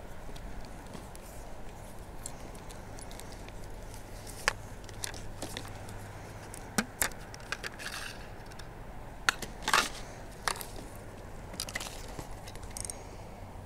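Scattered light clicks, taps and scrapes of a feeder rod being handled: the plastic protective cap pulled off the rod tip and the line drawn through the guides. The sharpest is a quick double click about two thirds of the way through.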